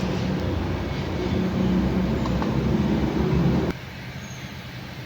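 Mercedes-AMG CLA45 S engine running with a steady low rumble. About three and a half seconds in, the sound drops abruptly to a much quieter steady hum.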